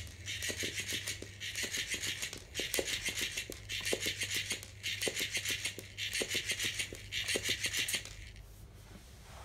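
FlippetyFish electric flopping-fish toy's motor buzzing with a rapid clicking as its tail flaps, in about seven bursts of roughly a second each, stopping about eight seconds in.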